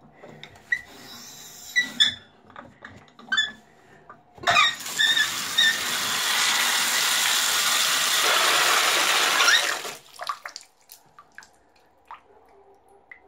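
A few clicks and knocks, then water pouring from a bathtub spout into the tub: a steady rush for about five seconds that cuts off abruptly, followed by a few faint ticks.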